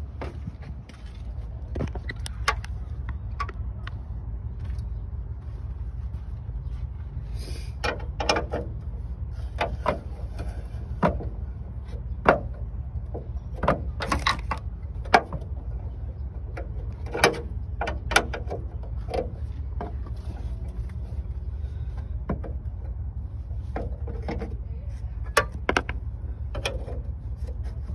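A combination wrench clinks and scrapes on steel hood hinge bolts as they are loosened and taken out: scattered sharp metallic clicks at irregular intervals, over a steady low rumble.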